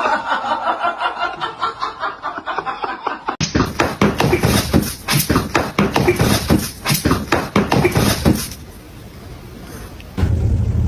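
People laughing in quick, repeated bursts; about three seconds in it cuts abruptly to another stretch of hearty laughter, which stops about eight and a half seconds in.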